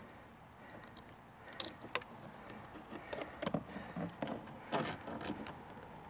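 Light handling noises from a plastic door trim piece and its wiring connector: scattered small clicks and rustles as the electrical connector is fitted.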